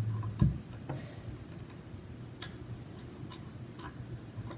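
Small scattered clicks and taps of a screwdriver working at a plastic headset microphone housing, with one louder knock about half a second in.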